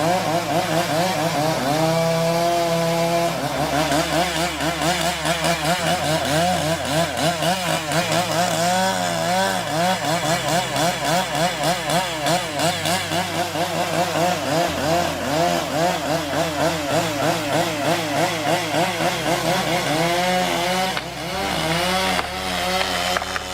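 Chainsaw cutting through wood, its engine pitch wavering rapidly up and down as it works in the cut.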